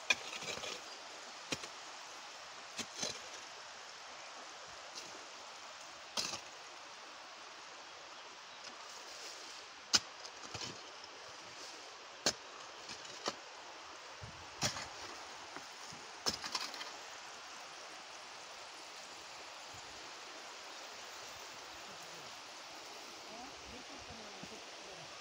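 Steady rushing hiss of water spray from a gravity-fed sprinkler, with irregular sharp clicks and cracks over the first two thirds.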